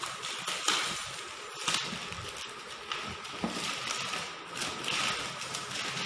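Newspaper wrapping and a cardboard box being handled and unwrapped: paper rustling and crinkling, with a few sharper crackles.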